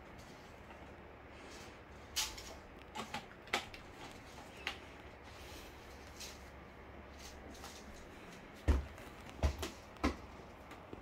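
Scattered light knocks and taps over a low room hum, with three sharper knocks near the end, the first the loudest.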